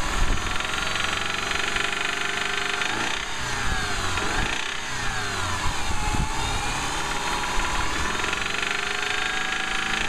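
2005 Subaru Outback's 2.5-litre flat-four engine running with a steady knock, its pitch dipping and rising a few times in the middle; the knock is a failed connecting-rod bearing, and the engine needs replacing.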